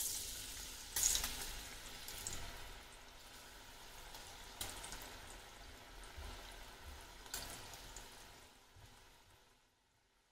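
Murukku dough pressed into hot oil, sizzling and bubbling as it deep-fries. The sizzle flares up several times and fades out near the end.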